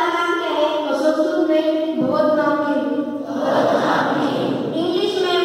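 A large group of school students singing together in unison, in long held notes. A little past the middle there is a noisier, rougher stretch of about a second.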